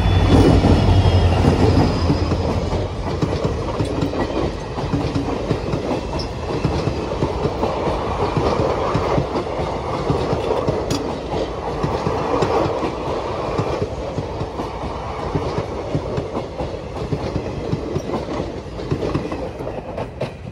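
WDP-4D diesel locomotive's EMD two-stroke engine passing close by, its low hum strongest in the first two seconds. A long rake of ICF passenger coaches follows, rumbling past with wheels clacking over the rail joints, and the sound falls away near the end as the last coach goes by.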